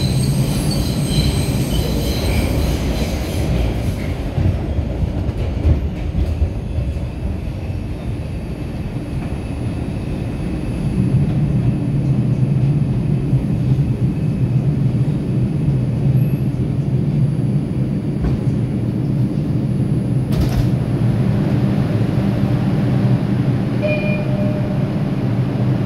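Inside an R142 New York subway car running on the rails: a continuous rumble of the wheels and traction motors, growing louder and steadier from about ten seconds in.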